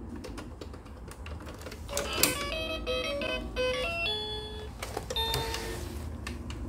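Baby's electronic learning table: clicks of its buttons and pieces being pressed, then about two seconds in a short electronic tune of stepping beeping notes.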